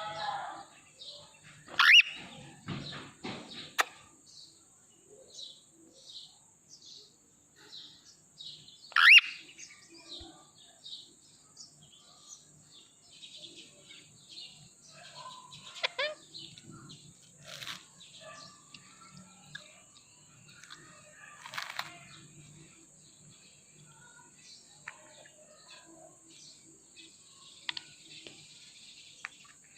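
Ringneck parrot calling: a run of short high chirps about twice a second, with loud shrill rising screeches about 2 seconds and 9 seconds in.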